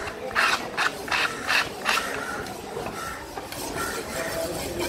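Flat metal scraper dragged across a wet wooden chopping block in about five quick scraping strokes, stopping about two seconds in.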